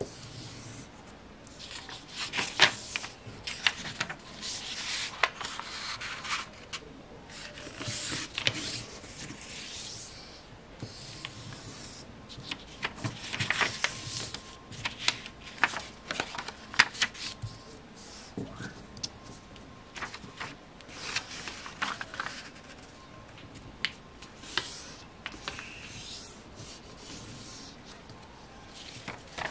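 A sheet of A4 paper being folded and creased by hand: irregular bursts of rustling and rubbing as fingers smooth and press along the folds, with a few sharp crackles.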